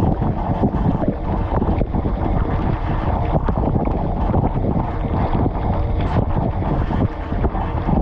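Water jets from a Bosch dishwasher's spray arms splattering over the dishes and the tub walls during the wash cycle, heard from inside the tub. It is a loud, steady rushing splatter with no breaks.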